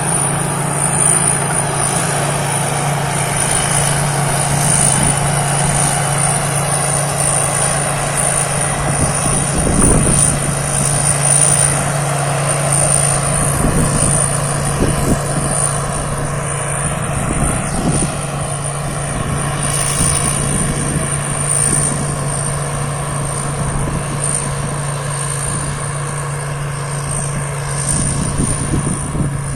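Thai Seng Yon rice combine harvester running steadily under load while harvesting, a constant engine hum with a thin, high-pitched whine from the machinery above it.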